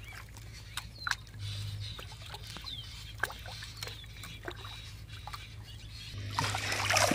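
Light splashing and dripping of shallow water around a floating plastic bottle fish trap as it bobs and tips, with scattered small clicks over a faint steady hum. About six seconds in, louder continuous splashing builds up.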